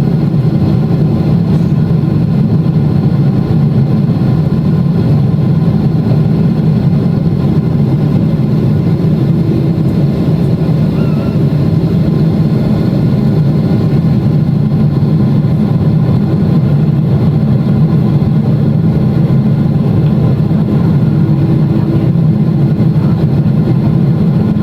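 Steady, loud drone of a Boeing 777-300ER's GE90-115B turbofan engines heard from inside the passenger cabin, with a low rumble and faint steady tones above it.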